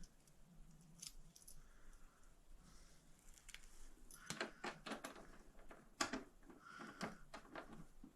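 Faint metallic clinks and rattles of small hardware being handled: a couple of light clicks about a second in, then a quick run of sharper clicks from about halfway through.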